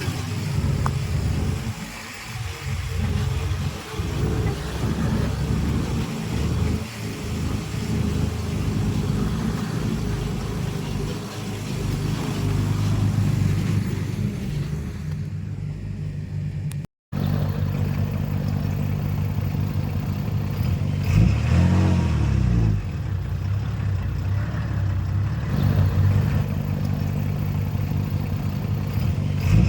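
Diesel engines of heavy earthmoving machines (bulldozer and dump truck) running steadily. The sound cuts out for a moment about halfway through, and an engine revs up and back down a few seconds later.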